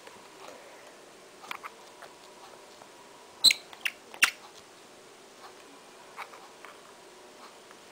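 Small clicks and taps of a pencil and a glass nail polish bottle being handled, with three sharper clicks close together about midway, as the pencil is set down and the brush cap goes back on the bottle.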